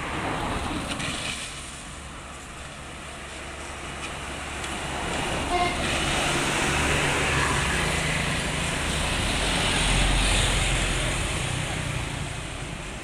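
Road vehicles passing close by: engine rumble and tyre noise swell slowly to a peak about ten seconds in and then fade, after a smaller pass at the start. A brief faint horn toot sounds near the middle.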